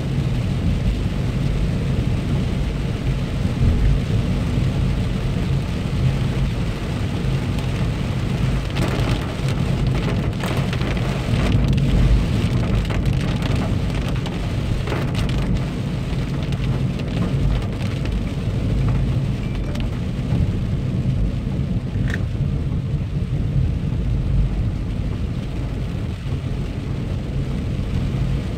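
Rain on a car's windscreen and body, heard from inside the cabin, over the steady low hum of the engine and tyres on the wet road. A stretch of sharper patters and knocks comes in the middle.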